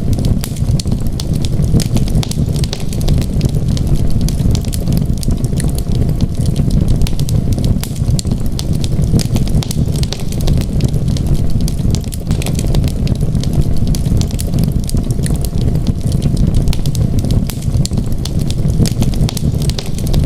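Fire crackling in a fireplace: a steady stream of small, sharp pops and snaps over a continuous low rumble.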